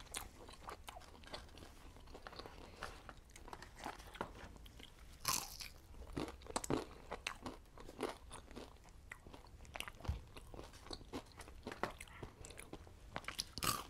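Faint, close-miked chewing and crunching of fried fast food (chicken tenders and fries): a steady run of small wet clicks and crunches, with a few louder bites about five seconds in and again near the end.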